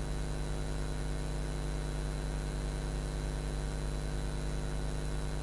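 Steady electrical hum with a buzz of many even overtones and a faint hiss, unchanging throughout: the noise floor of the audio feed once the music has stopped.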